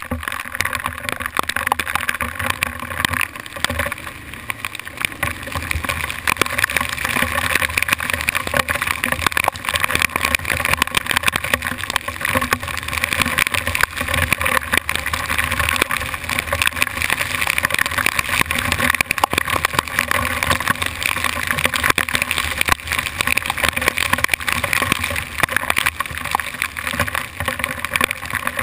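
Hail and rain pelting the camera housing in a dense, rapid patter of ticks, over the 2008 Kawasaki KLR 650's single-cylinder engine running as it rides down a gravel trail.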